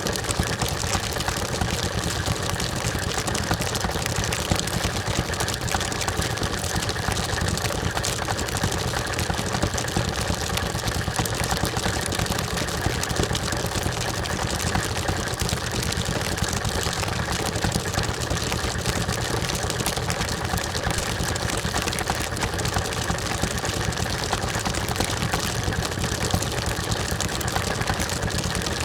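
National Geographic rotary rock tumbler running at full speed, its barrel filled to the top with rocks, grit and water: a steady, dense clatter of stones tumbling over one another, with a steady hum beneath.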